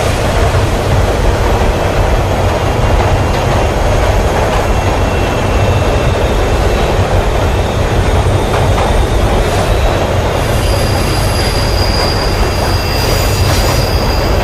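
Subway train running through a tunnel: a steady rumble of wheels on track, with a faint high squeal coming and going.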